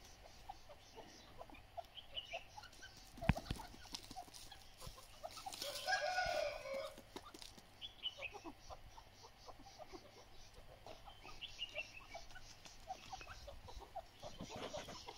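Grey francolins (grey partridges) giving short soft calls while foraging, among scattered light taps, with a longer, louder call about six seconds in.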